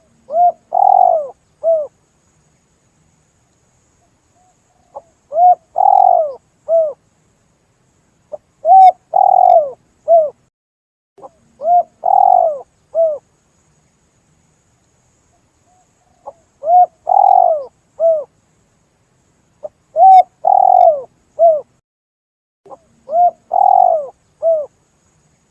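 Spotted dove (tekukur) cooing as a lure call, repeating its phrase of a few low coos about seven times with short pauses between. Each phrase has a short note, a longer rolling coo and another short note.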